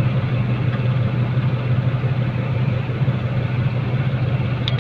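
Vehicle engine running steadily: a constant low drone with a hiss of noise over it.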